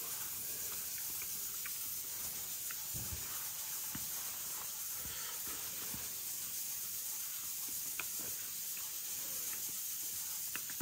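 Steady background hiss with faint, scattered clicks and soft knocks from eating with a fork out of a foil parcel of grilled fish.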